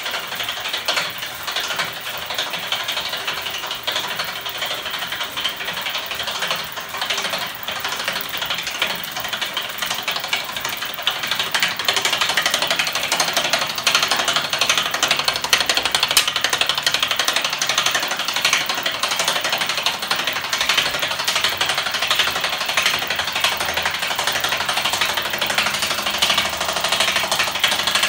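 Homemade spinning magnet machine, driven by small DC electric motors through gears, running with a fast, steady metallic clatter and rattle. It gets a little louder about twelve seconds in.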